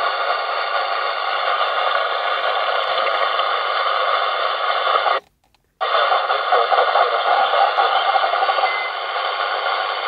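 Steady static hiss from a President Lincoln transceiver's speaker while receiving a weak, distant station on 26.445 MHz through heavy interference, with faint, barely readable signal in the noise. The hiss cuts out completely for about half a second midway, then returns.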